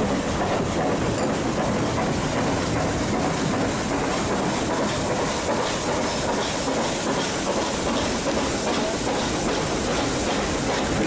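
Nilgiri Mountain Railway metre-gauge train running along the track: a steady rumble and rush of wheel and running noise, with faint repeated clicks of the wheels coming in a few seconds in.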